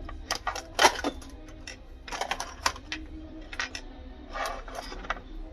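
Irregular light clicks and taps from tools and laptop parts being handled on a workbench, the loudest about a second in.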